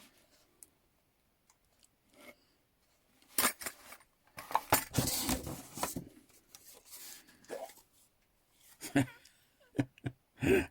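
Bursts of rustling packaging and clinks of metal hand tools as they are lifted out of a box. The first few seconds are nearly quiet, and there are a few sharp knocks near the end.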